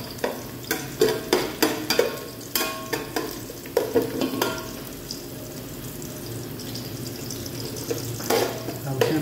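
Chopped garlic frying in oil in a metal pot. A metal spoon scrapes and knocks against the pot in quick strokes for the first four and a half seconds, then the frying goes on more steadily, with one more scrape near the end.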